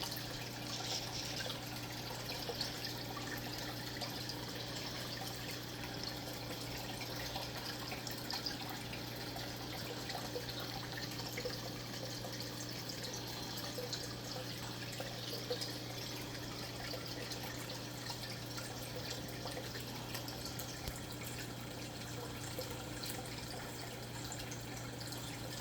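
A steady low hum with faint trickling, dripping water and a few small ticks.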